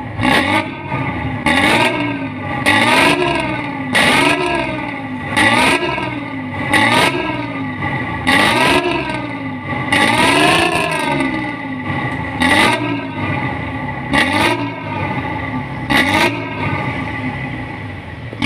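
Bus diesel engine with a 'knalpot ngorok' snoring exhaust being revved in repeated short blips, roughly one every second or two. The pitch of each blip rises and falls back to idle, with a sharp rasp at its start.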